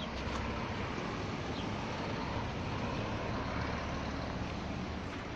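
A motor vehicle going by on the road: a steady rumble with road noise that eases slightly near the end.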